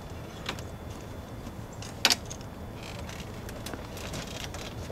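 Metal clicks and clanks of an ambulance stretcher being handled and pulled out, with a sharp double click about two seconds in, over a steady low rumble.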